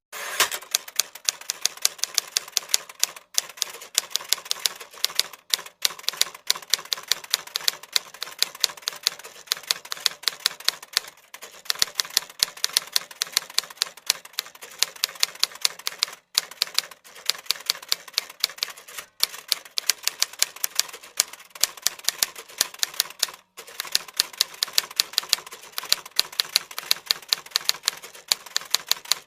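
A fast, continuous run of sharp clicks, with louder clicks standing out several times a second and a few short breaks.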